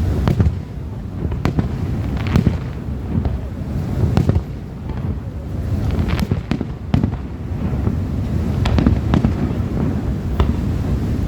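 An aerial fireworks display going off: repeated sharp bangs of bursting shells, some loud and others fainter, with crackling over a low rumble that runs through the gaps.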